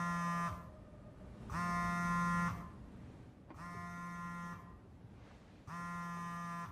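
A low, buzzy electronic tone pulsing on and off, each pulse about a second long with about a second's gap, four times, each starting and stopping abruptly.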